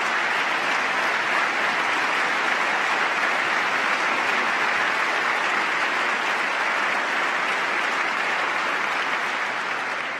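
Large crowd applauding steadily, easing off near the end.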